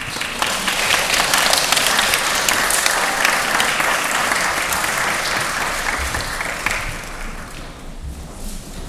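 Audience applauding: dense clapping that starts at once, holds for about six seconds, then dies away near the end.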